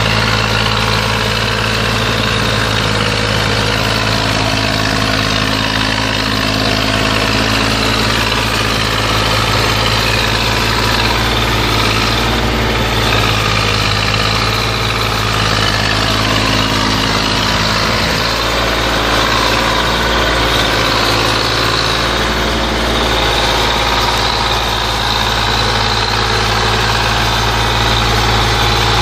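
Zetor 5245 tractor's three-cylinder diesel engine running steadily under load as it climbs a steep muddy lane, towing a trailer loaded with about two and a half tonnes of fertiliser. It grows slightly louder as it passes close by partway through.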